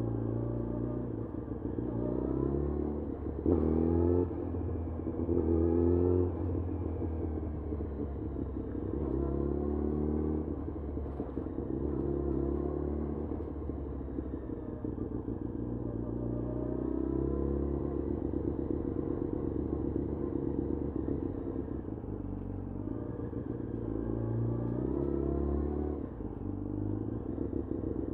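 2011 Yamaha FZ1's 998 cc inline-four engine in stop-and-go riding, its revs climbing and dropping back again and again. It is loudest in two short pulls about three and a half and five seconds in.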